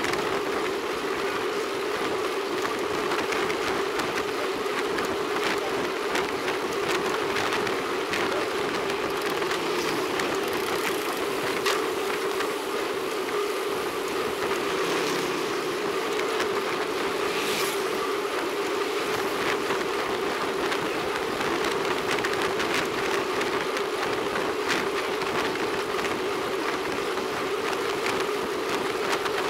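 Road bicycle riding along asphalt: steady wind rush and tyre noise, with a constant hum.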